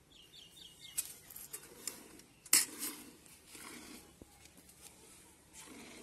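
Milk squirting from a cow's teats into a steel bucket during hand milking: a run of short swishing spurts, with one sharp knock about two and a half seconds in.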